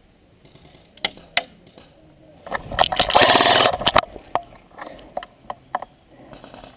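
Airsoft M4 rifle firing a full-auto burst of about a second and a half, with a few single sharp clicks before and after it.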